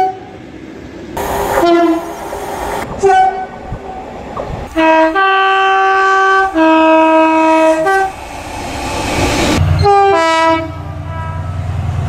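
British diesel locomotives sounding two-tone horns in a series of blasts, each a higher note followed by a lower one, with the longest pair about halfway through. Train noise fills the gaps, and a diesel engine rumbles under the last blast.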